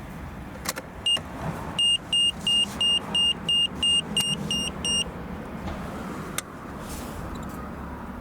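A run of about ten short, high electronic beeps, roughly three a second, over a steady low hum, with a few sharp clicks before and after.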